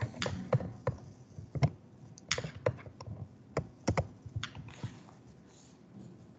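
Typing on a computer keyboard: about a dozen sharp keystroke clicks with uneven gaps between them.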